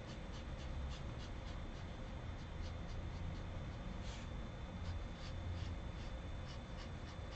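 Tombow ABT brush marker in N75 gray stroking over coloring-book paper: short, scratchy strokes repeating a few times a second as the area is filled in.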